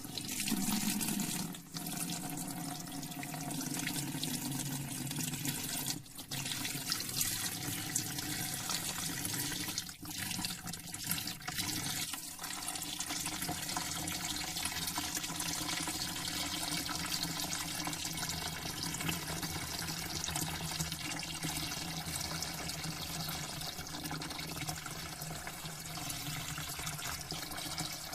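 Hands being washed under a running tap, the water splashing steadily into a sink, with the flow broken briefly a few times in the first half.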